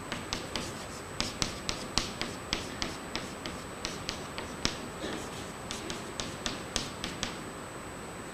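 Chalk writing on a chalkboard: a string of sharp taps and clicks, a few a second and irregularly spaced, as each symbol is written.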